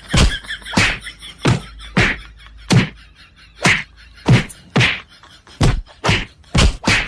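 Open hands slapping and thumping a person's back over and over, about a dozen sharp whacks at roughly two a second.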